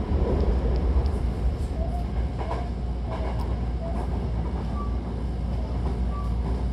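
Hankyu Takarazuka Line electric train running, a steady low rumble with a few faint clicks from the wheels.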